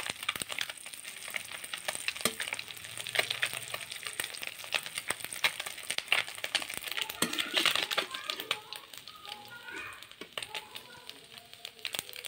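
Small masala-coated fish frying in hot oil in an iron kadhai, sizzling with a constant crackle of small pops, while a slotted metal ladle stirs them.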